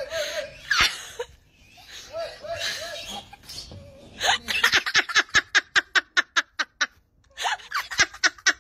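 A person laughing hard in quick, even bursts, about six a second, in a long run from about four seconds in and again near the end.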